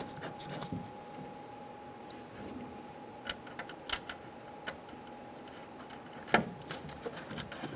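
Scattered light clicks and taps of small metal parts as 10mm nuts are started by hand onto the door handle's studs inside a truck door, the loudest about six seconds in, over a faint steady hum.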